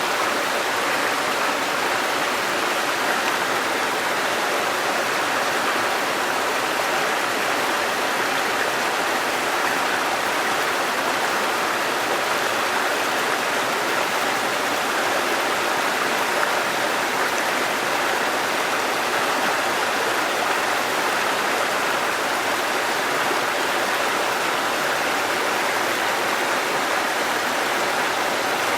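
Waterfall and stream water rushing in a steady, even hiss.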